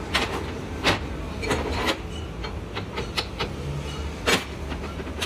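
Metal clanks and knocks from hand tools and a bench vise working on a large steel hydraulic cylinder: several irregular sharp strikes, the loudest about a second in and again about four seconds in, over a steady low workshop rumble.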